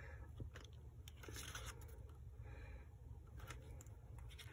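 Faint rustling and a scatter of soft flicks from the glossy paper pages of a CD photo booklet being leafed through by hand.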